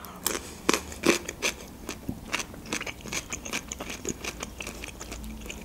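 Close-miked chewing of a mouthful of fresh cucumber, with crisp crunches and wet mouth clicks that thin out toward the end.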